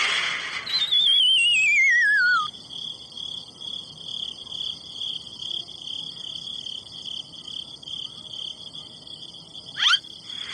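Cartoon sound effects: a warbling whistle slides downward for about two seconds, then a steady high-pitched pulsing tone runs on, broken near the end by a quick rising zip.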